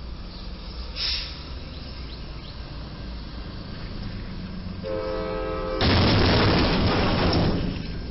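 A horn sounds for about a second. Then comes a loud crunch and scrape of about two seconds as the too-tall box of a Ryder box truck hits the steel beam of the low railroad bridge.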